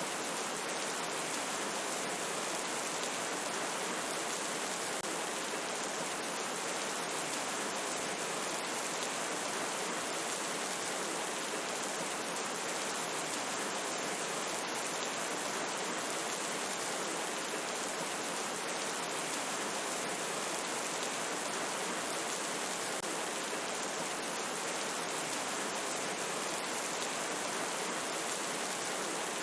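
Steady rain falling, an even hiss with no let-up or change in strength.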